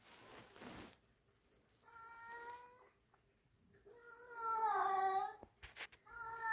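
A domestic cat meowing three times, each call drawn out over about a second. The middle call is the loudest and falls in pitch, and a short click comes just after it.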